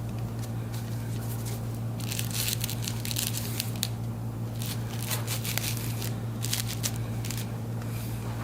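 Scattered crinkling and rustling handling noises as the Y-strap is fitted around the patient's head, in bursts around two and five seconds in, over a steady low hum.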